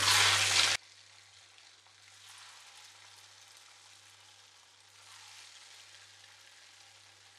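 Strips of ribbon murukku dough (rice flour and coconut) sizzling in hot oil. There is a loud hiss as the dough goes in, which drops abruptly to a faint bubbling that swells a little twice.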